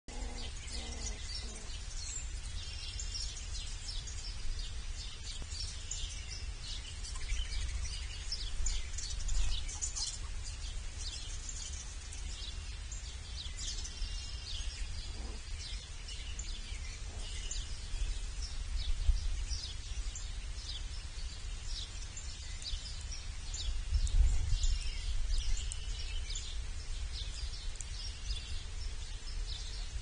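Many small birds chirping continuously: short, high-pitched chirps overlapping throughout, over a steady low rumble.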